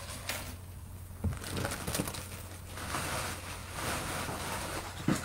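Rustling and handling noises with a couple of light knocks as pieces of jewelry are handled between items, over a low steady hum.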